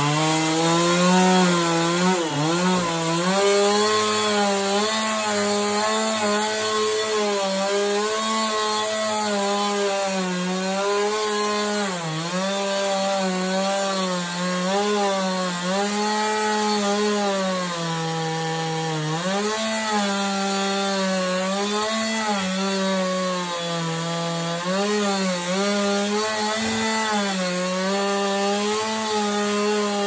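Gas chainsaw at full throttle cutting through a bundle of sawmill slabs on a dull chain. Its pitch sags and recovers again and again as the chain bites and bogs in the wood.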